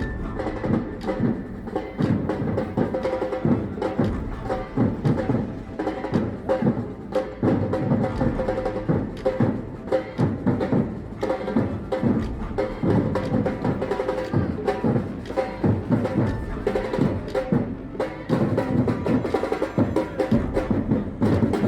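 Batucada samba percussion ensemble playing, a dense run of fast drum strikes that goes on without a break.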